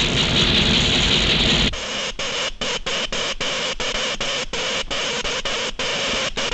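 Cartoon electric-ray sound effect: a loud electrical hiss that, about two seconds in, turns into a sputtering crackle broken by many brief gaps.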